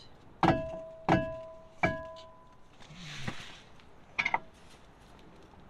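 Three ringing metal-on-metal strikes about 0.7 s apart, a steel bar or tool hitting the trailer's suspension while the swing arm is worked loose. A short rustle and a couple of light clicks follow.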